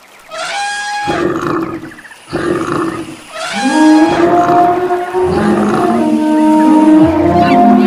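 Stampede sound effect: wild animals roaring and calling over a low rumble. From about halfway there are long, held pitched calls at several pitches.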